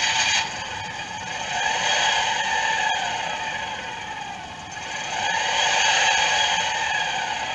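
Simulated car engine sound played through a scale model's small built-in loudspeaker: a thin engine note with no bass, revving up and back down twice.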